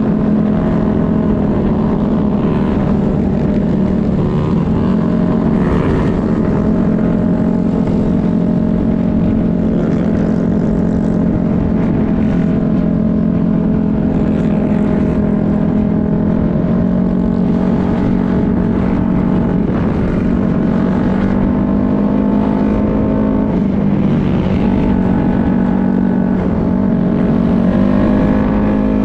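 A dirt bike engine running at steady cruising speed, heard from a camera on the bike itself, with wind rumbling on the microphone. Near the end the engine note drops and then climbs again as the throttle changes.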